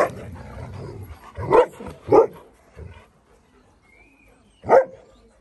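Alaskan malamutes play-barking as they wrestle: a rough, scuffling stretch at first, then short barks, two close together about a second and a half in and one more near the end.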